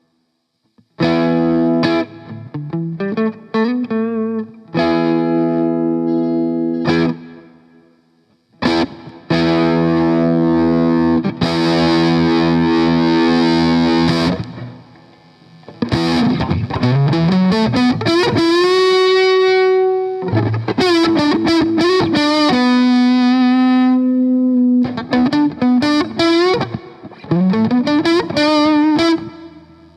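Electric guitar played through a Boss BD-2 Blues Driver overdrive pedal, with a crunchy distorted tone. Chords and notes ring out and break off, with notes that slide up in pitch and are held.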